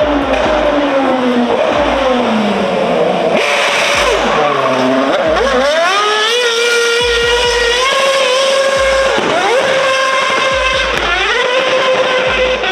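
Red Bull RB7 Formula 1 car's V8 engine at high revs. Its pitch falls over the first few seconds, then it is revved up several times, each time climbing sharply and holding at a high steady note.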